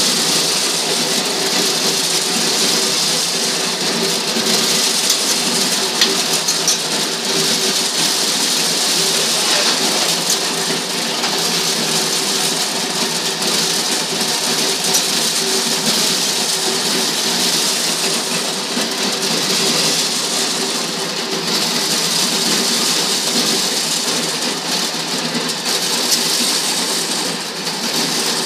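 Motor-driven maize sheller running while ears of corn are fed in by hand, kernels and cobs rattling through the machine in a loud, steady racket over a constant motor hum.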